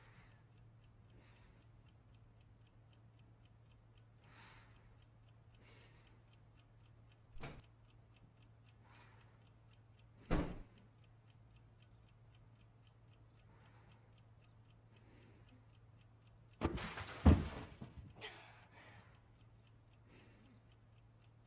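A clock ticking steadily in a quiet room over a low hum. A sharp knock comes about seven seconds in and a louder one about ten seconds in, and a louder burst of knocks and rustling comes near the end.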